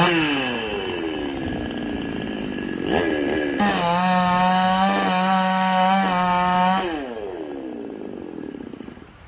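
Chainsaw engine revved high and dropping back, then held at a steady high speed for about three seconds before winding down again.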